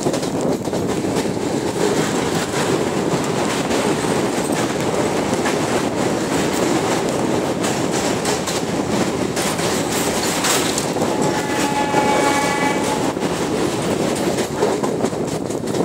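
Passenger train running at speed over a steel truss bridge and on beyond it, heard from the side of a coach: a steady rumble of wheels on rails with clickety-clack. A high steady tone sounds for about two seconds near the end.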